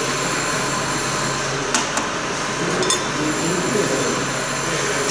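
Steady hum and hiss of background machinery, with a few light clicks of small parts being handled about two and three seconds in.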